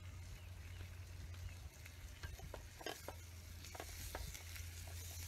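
Small wood campfire crackling, with scattered sharp irregular ticks as a stick is worked among the coals, over a steady low hum.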